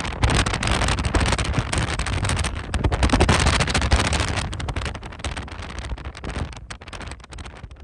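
Strong gusting wind buffeting the microphone, with constant crackling blasts that ease off in the last few seconds.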